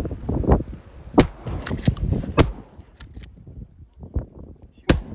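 A string of about seven sharp pops or clicks at irregular intervals, the first about a second in and the last near the end, with a low rushing noise between them.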